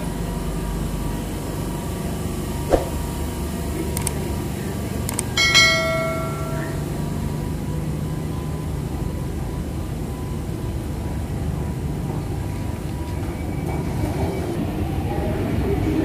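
London Underground station platform ambience: a steady low rumble of the train at the platform and the station. A sharp click comes a few seconds in, and about five seconds in a single ringing chime sounds for about a second.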